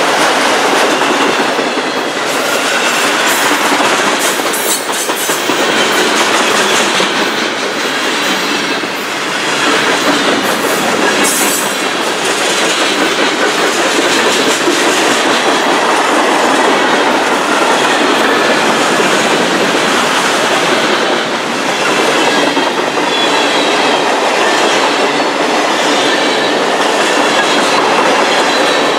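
Freight train cars rolling past close by: a steady, loud rumble and clatter of steel wheels on the rails, with a few sharper clanks a few seconds in.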